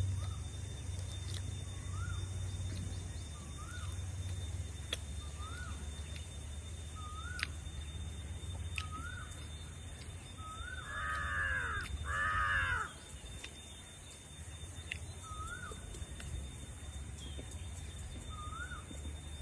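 A crow cawing twice, loud, about eleven and twelve seconds in. Under it a small bird repeats a short rising-and-falling chirp about once every second.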